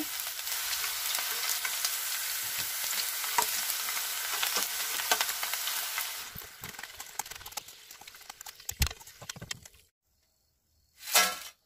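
Thin raw-banana slices deep-frying in hot oil in a steel kadai: a steady sizzle with scattered crackles and spoon-stirring. About six seconds in the sizzle fades to sparse pops, and a short knock comes near the end.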